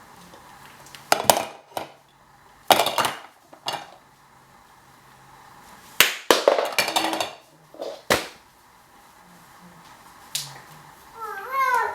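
Wooden toy ice cream scoops and cones clattering and knocking as they are put back into their set, in several separate bursts of clacks. Near the end there is a short wavering squeal.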